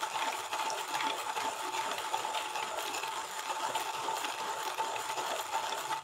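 Comandante manual coffee grinder being cranked steadily, its conical burrs crushing coffee beans: a continuous deep, gritty grinding with fine crackle.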